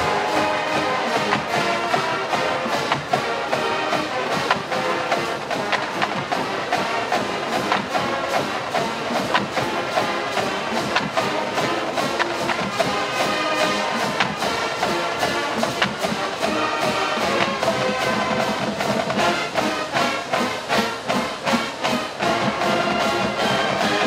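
Full marching band playing a funk arrangement: brass and sousaphones over a drumline keeping a steady beat, with sharp accented hits toward the end.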